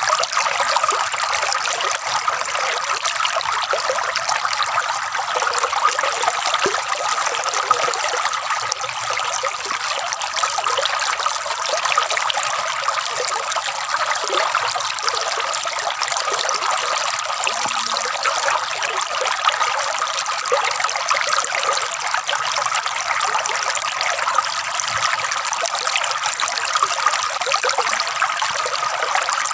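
Water trickling and gurgling steadily, a light flow with little low rumble.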